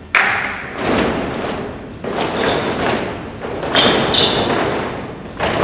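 A group of fencers' feet stamping on a sports-hall floor in unison during a footwork drill: four heavy thuds about two seconds apart, each trailing off in the hall's echo.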